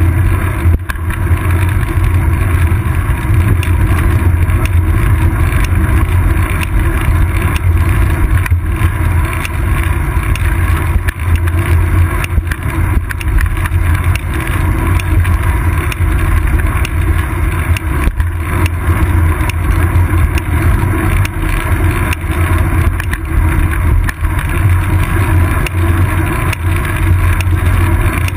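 Steady, loud rumble of wind and road vibration on a bicycle's seat-post-mounted GoPro Hero 2 while riding, with a few brief knocks.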